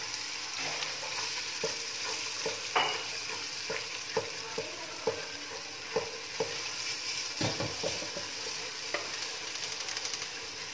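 Beaten eggs and potatoes frying with a steady sizzle in an aluminium pressure-cooker pan, while a spatula stirs and scrapes, knocking against the pan about twice a second, with a quick run of lighter taps near the end.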